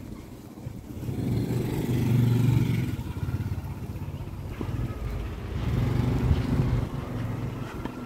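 A motor engine passing, swelling and fading twice: once about two seconds in and again about six seconds in.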